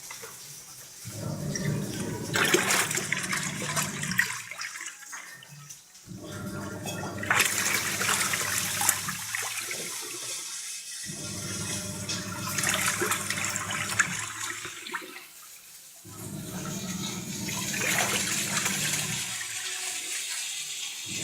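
Godrej Eon+ automatic washing machine in its wash cycle: the motor hums as the drum churns clothes through water in stretches of a few seconds, stopping briefly between them.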